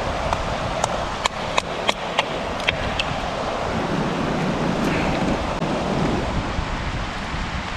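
Steady rush of river water flowing past, with a quick run of about seven sharp clicks or knocks between one and three seconds in.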